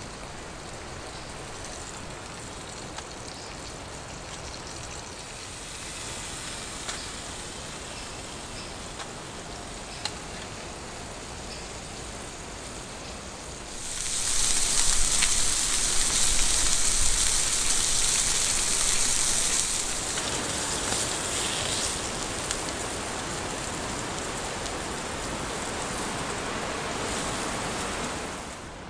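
Steaks sizzling in a hot frying pan (a hunter's pan): a steady frying hiss that comes in loud about halfway through, then eases a little and keeps going. Before it there is a quieter even hiss with a few small ticks.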